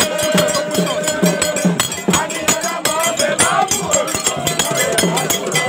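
Live celebratory percussion music with a steady struck-metal bell beat, mixed with singing and shouting voices from a crowd.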